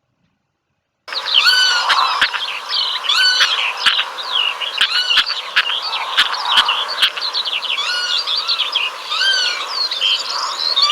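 Birds calling: many short, quick whistled chirps with rising and falling notes overlapping one another, plus a few sharp clicks, starting about a second in after silence.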